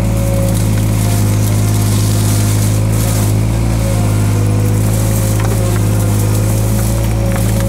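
Takeuchi TB016 mini excavator's diesel engine running steadily under load as the boom works, with a wavering higher whine over it. A few sharp cracks of snapping branches in the second half.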